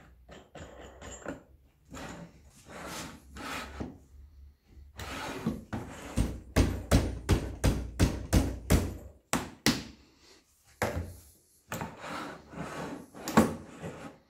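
Plywood parts of a homemade wooden lathe sliding and knocking on the plywood lathe bed: wood scraping on wood, then a quick even run of knocks about three a second, then more sliding and one loud knock near the end.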